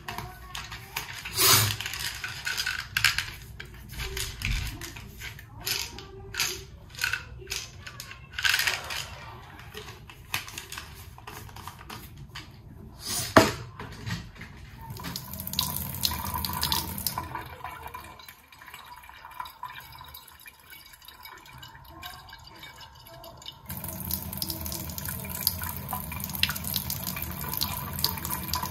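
Scattered clicks and knocks of things being handled, the sharpest about halfway through. Then a tap runs water into a sink: briefly a little past halfway, then on again and running steadily near the end.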